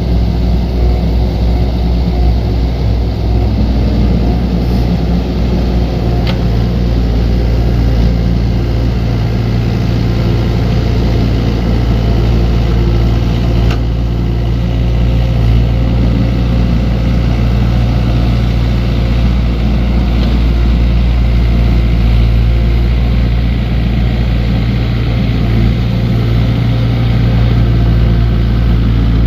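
Diesel engine of a small earthmoving machine running steadily under work, a low continuous drone with a couple of faint knocks.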